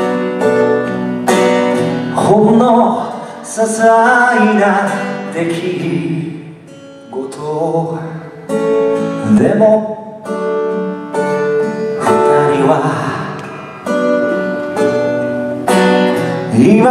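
A man singing while strumming chords on a steel-string acoustic guitar.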